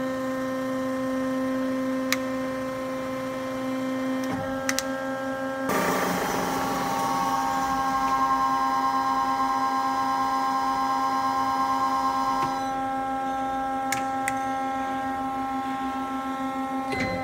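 Hyd-Mech V18A vertical band saw running, a steady mechanical hum with several held tones. About six seconds in, a louder whirring with hiss starts and drops back about seven seconds later. A few faint clicks.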